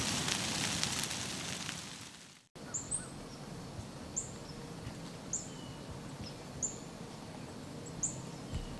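The intro music fades out over the first two seconds and stops; after a brief silence comes quiet outdoor morning ambience with a bird repeating a short high chirp about once a second.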